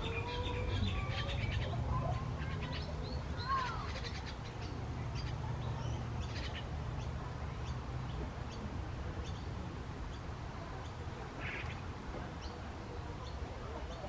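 Mixed wild birds calling in the background, with many short chirps and a few whistled glides, busiest in the first half and with another burst near the end. A steady low rumble runs underneath.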